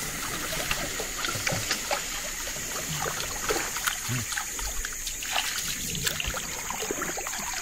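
Water trickling and lapping against a small boat, with scattered small clicks and taps, over a steady high hiss.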